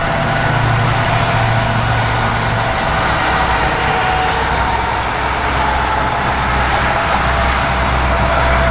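A motor vehicle's engine running steadily, a low hum whose deepest part shifts lower about three seconds in.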